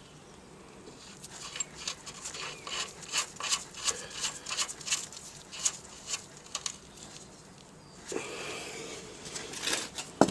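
Irregular clicks and clinks of a hand tool working the sump plug as it is threaded back into the engine's oil sump with a new copper washer. A rustling shuffle follows near the end, then one sharp click.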